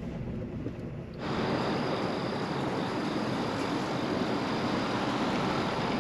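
Steady road and engine noise heard from inside a moving car, jumping suddenly louder about a second in.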